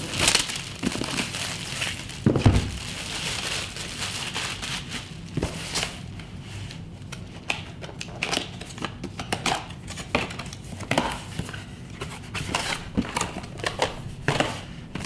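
Plastic shrink-wrap crinkling and tearing as it is stripped off a cardboard box, then the box's cardboard flaps being handled and opened, with scattered crackles and clicks. A low thump comes about two and a half seconds in.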